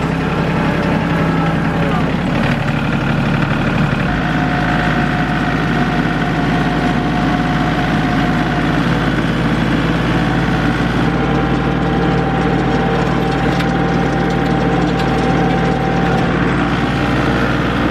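Farm tractor engine running steadily while plowing snow, with a shift in its low drone about four seconds in.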